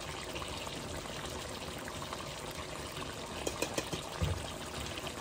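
Steady sizzle of food frying in a pan, with a few light utensil clicks about three and a half seconds in and a soft knock just after four seconds.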